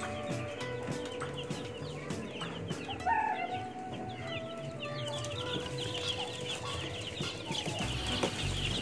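A brooder full of Rhode Island Red chicks peeping: many short, high, falling peeps overlapping without a break.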